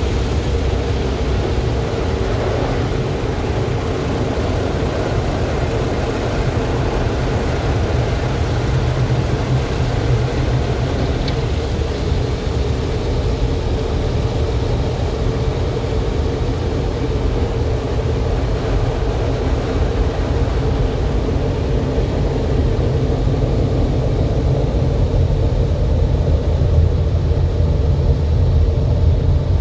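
Automatic car wash running, heard from inside the car's cabin: a steady, loud rumbling wash of water spray and machinery that grows slightly louder near the end.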